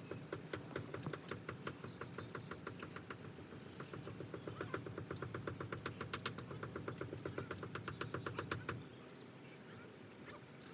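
Knife chopping on a cutting board: fast, even strokes, about seven a second, that stop about nine seconds in.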